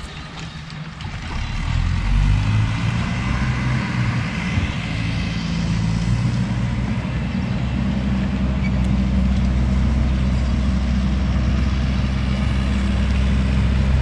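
A heavy vehicle's engine running, a low steady drone that grows louder about two seconds in and then holds.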